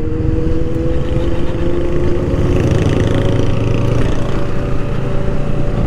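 Honda Rebel 500's parallel-twin engine running under way at a steady cruise, its pitch creeping up slightly as it gently gains speed, over a low rumble of wind and road noise.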